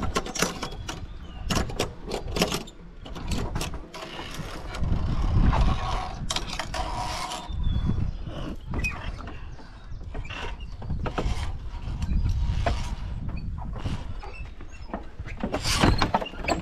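Repeated metal clicks, clacks and scraping from climbing-park safety gear: carabiners and a pulley trolley working along a steel cable. A dull low rumble comes and goes underneath.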